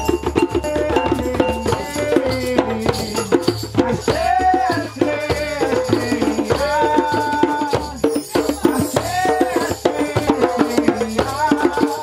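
Group of djembe hand drums played together in a fast, continuous rhythm, with a shaker rattling along. A melody with bending, sliding pitches runs over the drumming and comes and goes.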